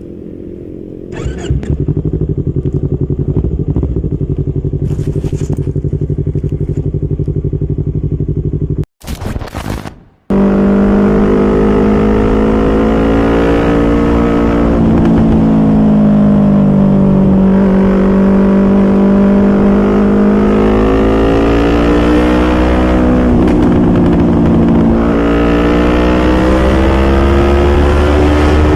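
Yamaha R25's parallel-twin engine running, first at a steady note, then after a brief break with its pitch slowly sagging and climbing again as engine speed changes.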